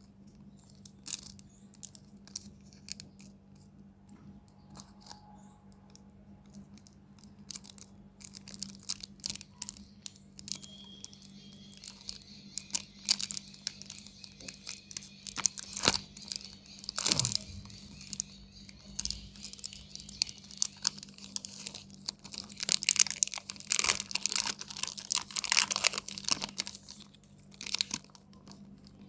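Candy wrappers being crinkled and torn open, in scattered crackles that become dense, rapid rustling in two long stretches.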